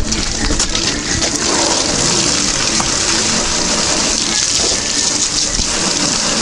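Water from a garden hose spraying onto a plastic car bumper, a steady, even rushing spatter.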